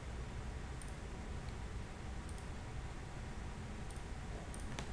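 A handful of faint computer mouse clicks, about five spread out, the sharpest near the end, over steady low room noise.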